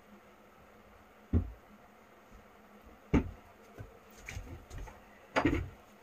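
A few separate knocks and thumps in a quiet room: one a little over a second in, another about three seconds in, a few softer knocks after that, and a short clatter near the end.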